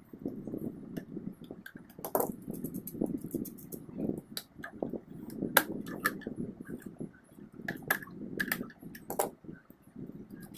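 Metal clinks and rattles of nuts, bolts and tools on a ceiling fan's metal parts as it is taken apart by hand: about seven sharp clinks over a steady low rustle of handling.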